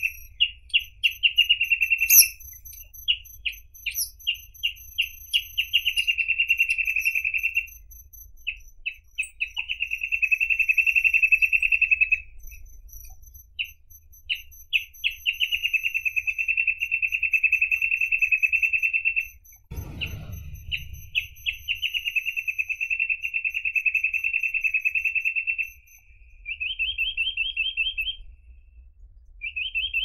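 Reed parrotbill singing: long fast trills of repeated notes, each lasting a few seconds, broken up by spaced single notes, with two short buzzy phrases near the end. A dull thump about two-thirds of the way through.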